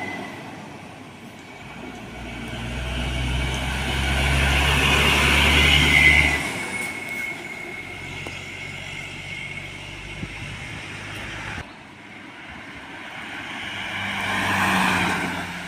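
A heavy diesel truck passing close by on the road, its deep engine sound building to a peak about six seconds in, with a thin high whine at its loudest, then fading. A second vehicle passes near the end.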